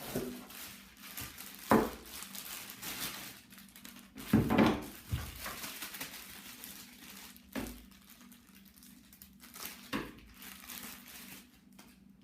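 Packaging crinkling and rustling as it is handled and unwrapped, with a few short knocks, the loudest about four and a half seconds in.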